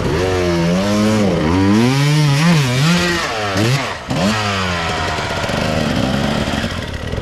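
Enduro dirt bike engine revving, its pitch rising and falling several times with quick throttle blips about halfway through, then settling to a steadier note.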